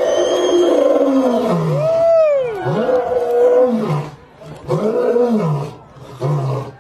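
Lion roaring: several long roars that rise and fall in pitch, then shorter roars in quick succession near the end of the bout.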